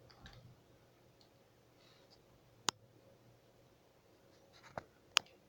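Three sharp clicks in a quiet small room, one about halfway through and two close together near the end, with faint scratching sounds in between.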